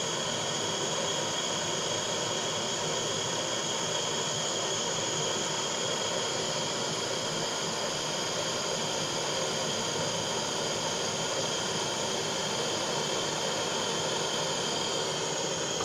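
Butane blowtorch flame burning steadily with a continuous hiss, heating a crucible of e-waste silver solder to melt it for re-pouring.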